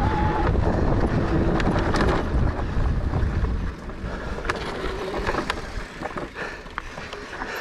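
Wind rushing over the microphone and mountain bike tyres rolling on a dry dirt trail, with scattered sharp clicks and rattles. The wind rush drops away about three and a half seconds in.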